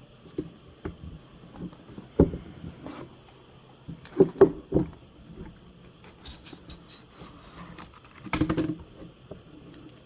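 Hands handling the cardboard and paper contents of a trading-card box: scattered taps and knocks, with a louder, half-second sliding rustle a little past eight seconds.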